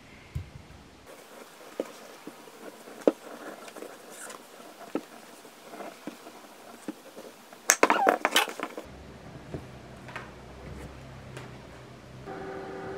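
Chef's knife sawing through a frozen bagel on a wooden cutting board: scattered crunchy clicks from the hard crust, with a louder cluster of crunches about eight seconds in. Near the end a countertop oven starts a steady hum.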